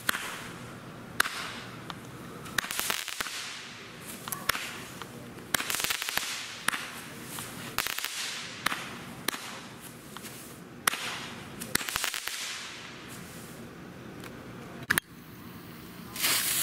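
Consumer aerial fireworks bursting overhead: about a dozen sharp bangs at irregular intervals, each trailing off in a hiss or crackle.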